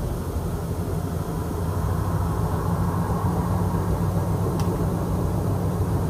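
A steady, loud low drone or rumble with a hazier, higher layer that swells slightly partway through, of the kind circulated as an unexplained 'strange sound' in the night sky.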